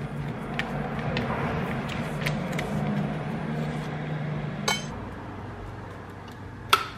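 A spoon clinking and scraping in a plastic tub of cheese and against a plate, with light taps of kitchenware. There is a sharp click a little after the middle, and another just before the end as an electric kettle is switched on at its base.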